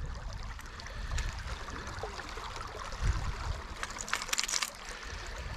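Faint water trickling and lapping around the boat, with a soft knock about three seconds in and a few light clicks near four seconds as hands turn over an old surface lure and its tangled line.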